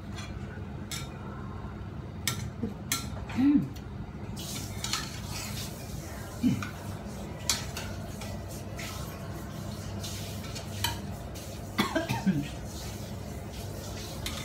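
A spatula stirring and turning stir-fried celery and chicken in a stainless steel frying pan, with scattered clinks and scrapes of the spatula against the pan.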